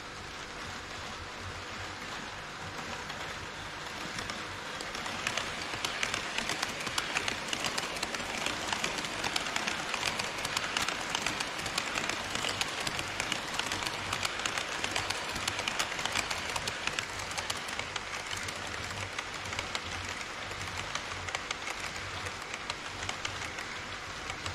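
HO scale model trains rolling on KATO Unitrack: a steady rush of wheels and motors with dense, rapid clicking over the rail joints. It grows louder about five seconds in as an E5 series Shinkansen model passes close by, then eases off.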